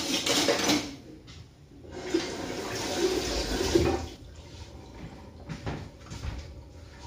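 Water running for about two seconds, a steady rushing hiss, with a shorter rush at the very start. A couple of soft knocks follow near the end.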